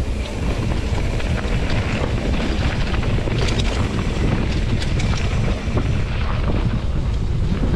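Mountain bike riding over a trail, heard as steady wind rumble on the action camera's microphone with scattered clicks and rattles from the bike.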